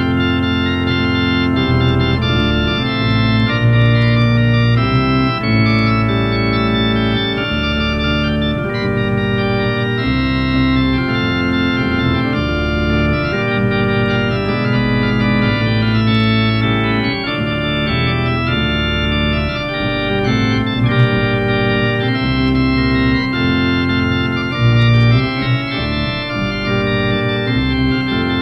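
Organ playing slow, held chords over a strong bass line, the chords changing about every second or two.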